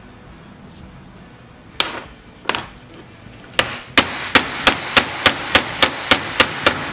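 A ball-peen hammer tapping metal-on-metal on a 1¼-inch socket, driving a cork seal into a Wisconsin engine's bearing plate. There are two single taps a couple of seconds in, then an even run of quick taps, about three a second, from about halfway on.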